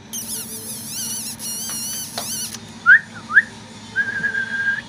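Doberman puppy whining in high, wavering squeals, then a person whistling: two short rising whistles and one held note.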